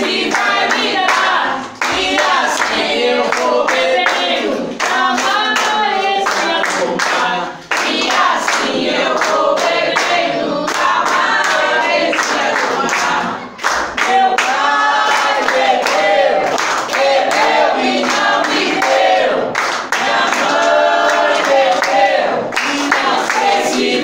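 A group of voices singing an Umbanda ponto cantado for the Marinheiros (sailor spirits) in Portuguese, with hand clapping keeping time throughout. The singing breaks briefly between phrases.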